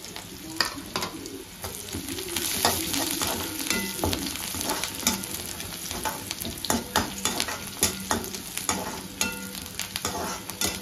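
Sliced onions and green chillies sizzling in hot oil in a kadai, while a perforated steel spatula stirs them and repeatedly scrapes and clicks against the pan.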